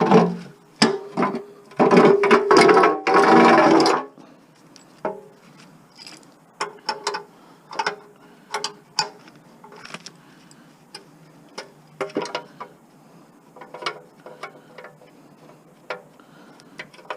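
Ratchet wrench clicking in quick runs for the first few seconds, then scattered clicks and clinks of tools against metal parts of a lawn mower being taken apart.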